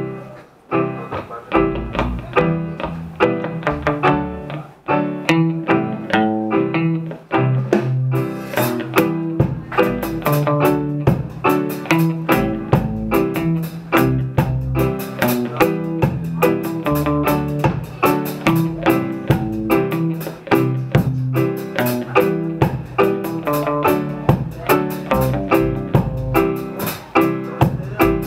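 Live band playing an instrumental intro on guitar, keyboard and drums, with a steady beat. Cymbals or hi-hat join about eight seconds in and fill out the sound.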